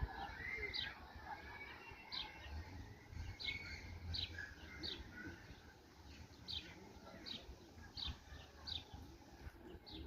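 A bird chirping repeatedly: short, high, falling chirps, roughly one or two a second, over a faint low rumble.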